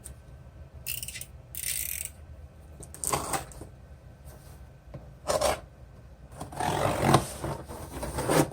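Packing material being handled and pulled apart as a wrapped sewing-machine extension table is unpacked: a series of short scraping and rubbing noises, with a longer stretch of rubbing near the end.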